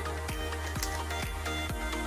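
Upbeat electronic background music with a steady four-on-the-floor kick beat.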